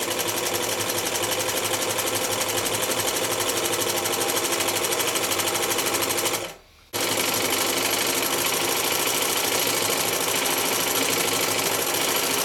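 Chaika-134A electric zigzag sewing machine running fast and evenly, stitching a zigzag test seam. It stops briefly a little past halfway, then starts again.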